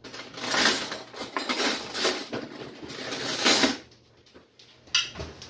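A serving utensil scraping and clinking against dishes as food is dished out onto plates, in repeated strokes for nearly four seconds, then a short knock near the end.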